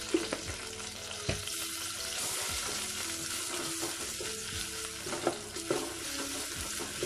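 Ginger-garlic paste sizzling in hot oil with sautéed onions and herbs in a stainless steel pot, stirred with a wooden spatula that knocks against the pot a few times.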